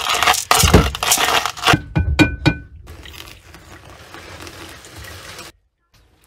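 Clattering and scraping against a glass pour-over coffee brewer, then a few short ringing clinks of glass or metal about two seconds in. After that comes the softer, steady sound of hot water poured from a gooseneck kettle onto coffee grounds in the paper filter, which cuts off suddenly near the end.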